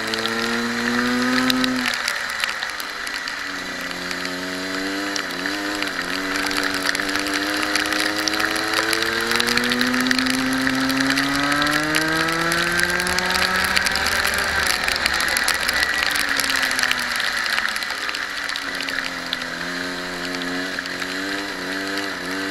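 Racing kart engine heard onboard, revving up and down with the lap. The pitch falls about two seconds in as the kart slows for a corner, climbs steadily along a straight to a peak near fourteen seconds, drops away under braking, and builds again near the end.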